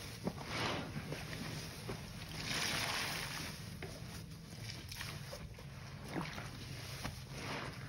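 Large sponge being pressed, rubbed and lifted in a sink of sudsy water by gloved hands: wet squishing and sloshing, with a louder swell a few seconds in.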